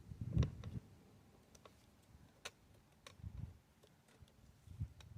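Faint, irregularly spaced metallic clicks and a few short dull knocks from a 14 mm socket wrench being worked on the front brake caliper bolts.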